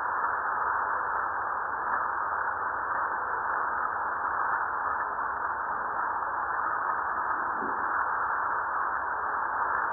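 Fuego volcano's seismometer recording played back as sound, with the north and vertical components in the two stereo channels. It is a steady hiss with no eruption or tremor signal, only the volcano's quiet seismic background.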